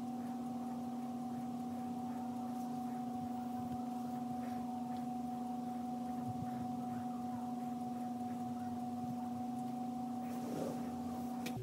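Steady electrical hum made of two pure tones, one low and one higher, with a few faint clicks as a vaccine syringe and vial are handled.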